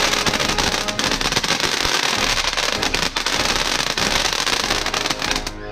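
A consumer fountain firework spraying sparks: a steady hiss packed with rapid crackles, which cuts off near the end.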